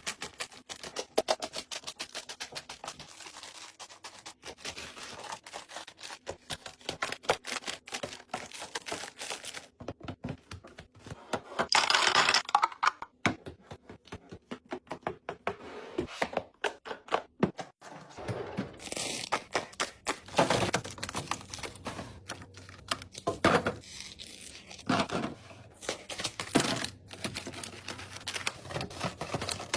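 Restocking handling sounds: many quick clicks and taps of containers, lids and packaging being picked up and set down, with a louder burst of packaging noise, like crinkling or tearing, about twelve seconds in.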